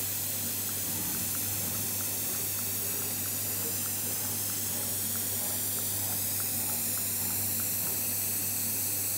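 Steady loud hiss of workshop machinery with a constant low hum underneath, and faint light ticks about twice a second.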